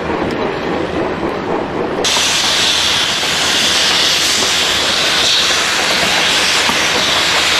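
Steam locomotive hissing loudly as it vents steam, the hiss starting suddenly about two seconds in and then holding steady over the rumble of the moving train.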